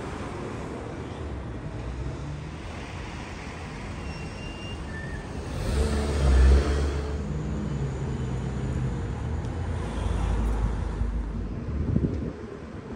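Road traffic running steadily, with a vehicle passing loudly about halfway through and another swell of engine noise near the end.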